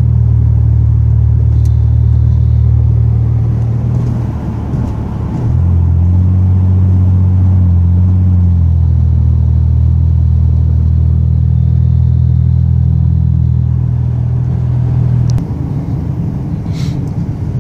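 Supercharged 3800 Series II (L67) V6 of a 2001 Pontiac Grand Prix GTP, heard inside the cabin while driving: a steady low exhaust drone through a 3-inch ZZP catted downpipe and cat-back with no resonator. The drone dips about four seconds in, comes back at a slightly different pitch, and drops in level about three-quarters of the way through.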